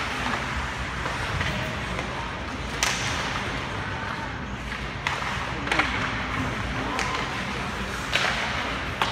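Ice hockey play: sharp clacks of sticks striking the puck and the puck hitting the boards, about half a dozen spread through, over a steady rink hubbub with faint shouts of players.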